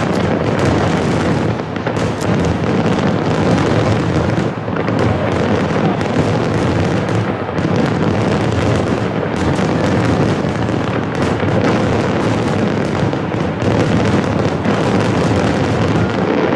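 Aerial fireworks shells bursting in a continuous barrage. Many overlapping bangs and cracks blend into one dense, unbroken rumble, with no pauses between the bursts.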